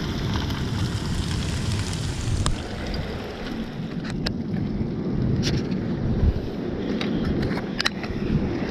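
Breadcrumbed whiting fillets sizzling in hot oil in a frying pan, over a low rumble of wind on the microphone. The sizzle fades after about two and a half seconds, leaving the wind rumble and a few sharp handling clicks.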